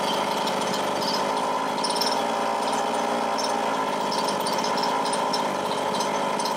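A Losi 5ive-T's Chung Yang 29cc two-stroke gas engine running steadily just after starting, during a break-in heat cycle.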